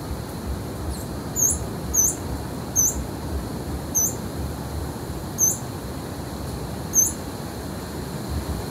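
Broad-tipped hermit giving short, very high-pitched squeaky call notes: six single notes at uneven gaps of about a second, over a steady background hiss.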